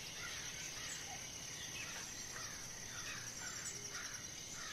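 Faint jungle ambience: a steady high-pitched insect drone with small chirps repeating about twice a second.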